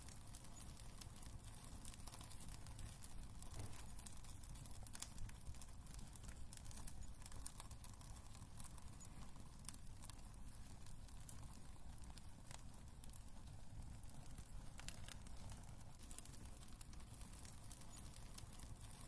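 Wood fire crackling in a fireplace: scattered, irregular sharp pops and snaps over a faint low rumble.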